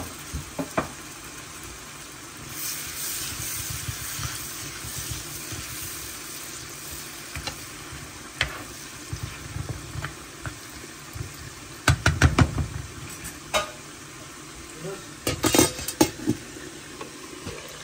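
Food frying in a pan with a steady sizzle while it is stirred, a spoon scraping and knocking against the pan now and then. The sizzle swells a few seconds in, and there are quick runs of knocks about twelve seconds in and again near the end.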